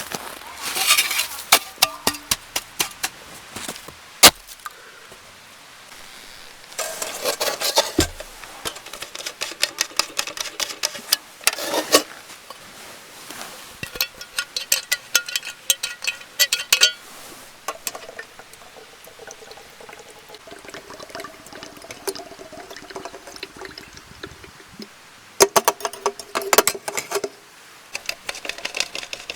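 Cooking-pot and utensil clatter: repeated clinks and knocks in clusters, with liquid being poured that makes a faint pitched ringing in the later part.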